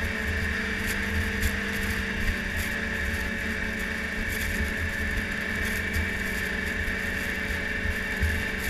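Yamaha snowmobile engine running at a steady cruising speed, with an uneven wind rumble on the microphone.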